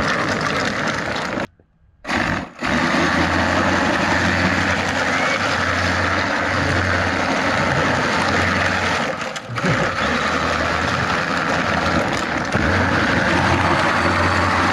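Loud, steady rushing of wind and road noise on a moving camera's microphone. It cuts out almost completely for about half a second around one and a half seconds in.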